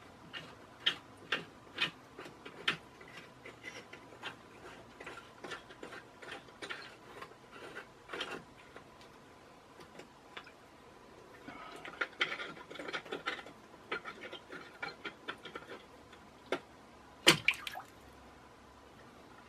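Metal spanner clicking and ticking on the nut of a cold-water tank's ball valve as it is undone, with water sloshing and dripping in the tank. Near the end comes one loud knock and splash as the float ball drops into the water.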